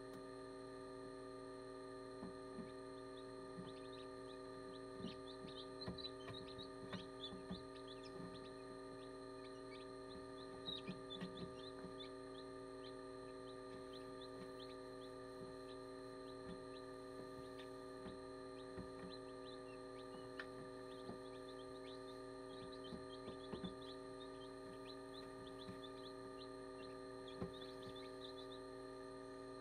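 Newly hatched chicks peeping: short high cheeps in scattered bunches, over the steady hum of an incubator's fan, with a few soft low taps.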